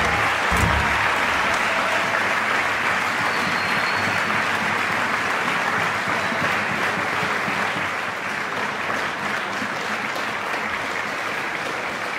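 Concert audience applauding, a dense, even clapping that eases slightly in the second half. The ensemble's last low notes fade out in the first second.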